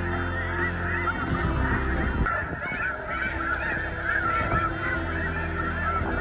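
A dense chorus of snow geese calling, many short high honks overlapping without a break, over a steady low rumble.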